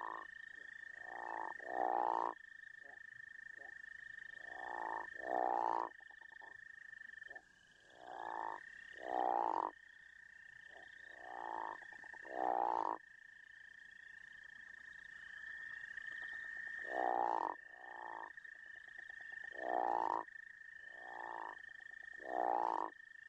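Crawfish frogs calling: repeated snoring calls, each half a second to a second long and rising in pitch, often in pairs. A steady high-pitched chorus runs underneath.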